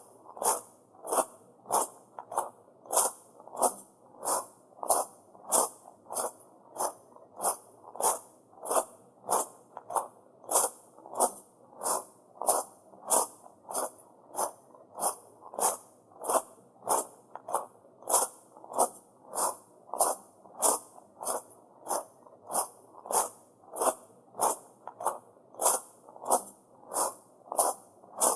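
Footsteps crunching on small pebbles, shrine gravel, at a steady walking pace of about two steps a second.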